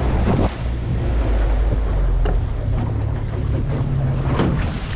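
Wind buffeting the microphone and water sloshing against a small boat's hull, over a steady low motor hum.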